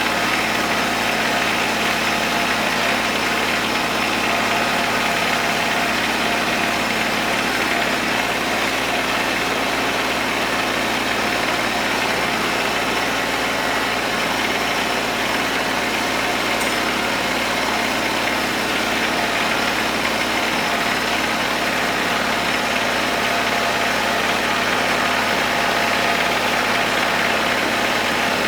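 Kubota tractor's diesel engine running at a steady hum while driving a rotary hay tedder, with the tedder's rotors turning and spreading hay.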